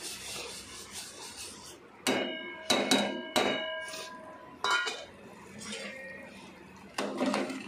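Foxtail millet grains pouring into boiling water in an aluminium pot with a steady hiss, then about half a dozen sharp metal-on-metal clangs against the pot, each with a brief ringing tone.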